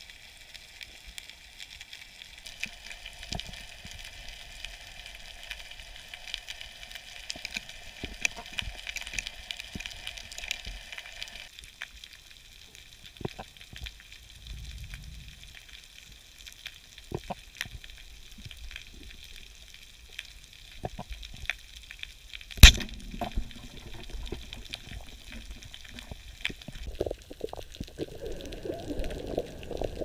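Underwater crackling full of small clicks, with a steady high hiss. About three-quarters of the way through, one sharp, loud crack from a band-powered speargun shot, and near the end a low rushing noise sets in while a fish hangs speared on the shaft.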